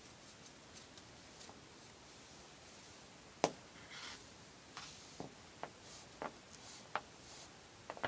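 Hands pulling and tightening cords into a knot: soft rustles of cord sliding between fingers and sharp small clicks, one louder click about three and a half seconds in, then a string of smaller clicks and rustles toward the end.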